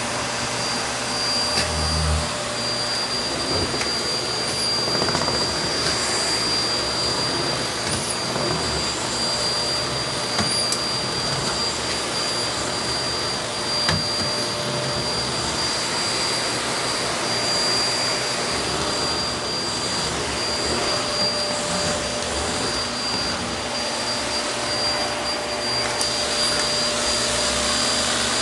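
Vacuum cleaner running steadily, an even rushing noise with a constant high-pitched whine, and a couple of brief knocks.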